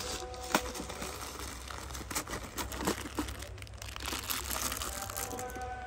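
Thin clear plastic packet of buttons crinkling as it is handled, with scattered small sharp clicks.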